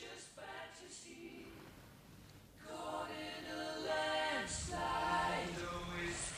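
Several voices singing together a capella, in harmony, softly at first and growing louder about two and a half seconds in.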